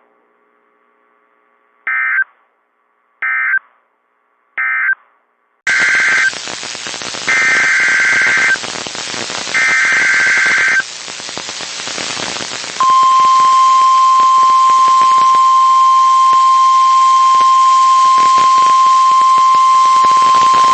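NOAA Weather Radio Emergency Alert System tones. First come three short SAME data bursts, the end-of-message code for the previous alert. Over a hiss of radio static, three longer warbling SAME header bursts follow, the data that opens a new alert. From about halfway through, the steady 1050 Hz warning alarm tone sounds, marking the alert as a warning.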